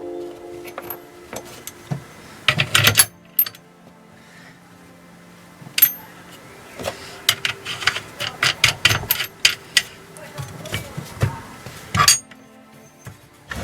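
Irregular metallic clinks and knocks from trolley jack parts and hand tools being handled and set down on a workbench. There is a quick cluster about two and a half seconds in, scattered clicks through the middle, and a sharper knock near the end.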